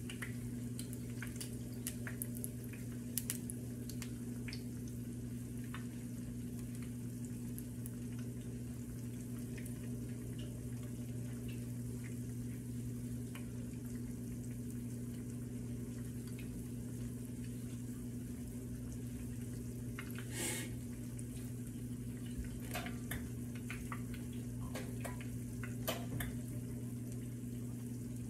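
Conch fritter batter frying in shallow oil in a nonstick skillet: scattered small pops and crackles of sizzling oil, with one louder sputter about two-thirds of the way through, over a steady low hum.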